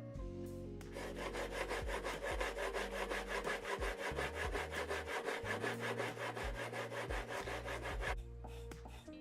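Steel chisel rubbed in rapid, even back-and-forth strokes on a sharpening plate, a dry scraping rasp, as its edge is honed. The strokes start about a second in and stop about a second before the end, over faint background music.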